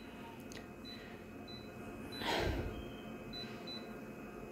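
Office photocopier's touchscreen giving several short, high beeps as its on-screen settings buttons are pressed. A breath near the microphone, the loudest sound, comes a little after two seconds in.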